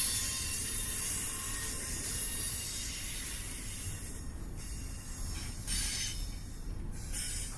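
Freight train cars rolling past slowly, steel wheels on rail giving a low rumble under a high hiss with thin, steady wheel squeal tones. In the second half the high hiss drops out briefly a few times.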